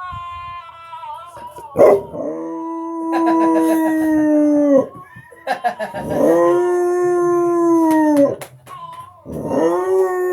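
Pet dog howling at a voice on a speakerphone: several long, drawn-out howls a couple of seconds each, the pitch sagging at the end of each.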